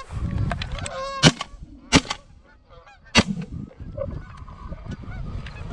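Three shots from a Stoeger M3500 12-gauge semi-automatic shotgun, fired in quick succession about a second in, two seconds in and three seconds in. Geese honk overhead just before and around the first shot.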